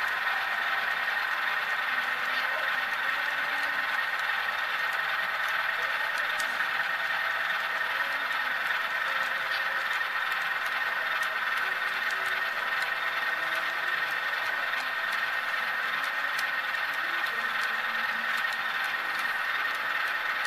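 Model-railroad stock cars rolling past on track: a steady rolling hum of small metal wheels on the rails, with faint scattered ticks.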